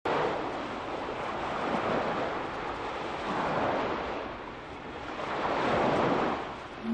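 Sea waves washing: a steady rushing noise that swells and fades a few times.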